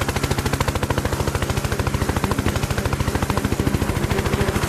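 Helicopter rotor chopping in a rapid, even beat over a steady engine hum, as it hovers close.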